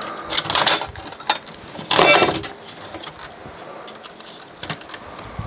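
Irregular clicks and knocks of a DVD player's casing and parts being handled during disassembly, with a brief ringing metallic clink about two seconds in.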